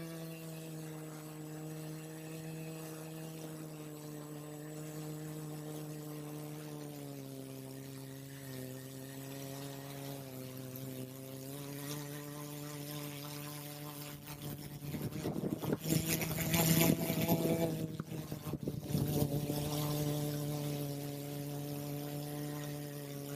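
Quadcopter drone's motors and propellers humming steadily, the pitch dipping slightly about seven seconds in and climbing again a few seconds later. From about fifteen to nineteen seconds, gusts of wind buffet the microphone in a loud rush.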